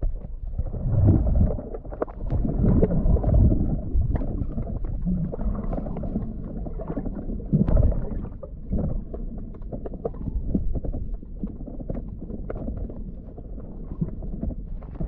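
Underwater sound picked up by a submerged GoPro action camera while snorkelling: a low rumbling wash of moving water with scattered small crackles and clicks. The wash swells louder about a second in and again just before eight seconds.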